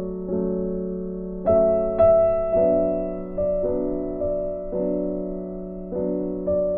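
Slow, soft piano background music: chords and single notes struck every half second to a second, each left to ring and fade.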